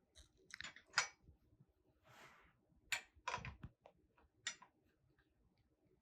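Scattered metallic clicks and clinks of a wrench tightening the front-wheel axle nuts of an e-bike, the loudest about a second in, with a short rustle just after two seconds.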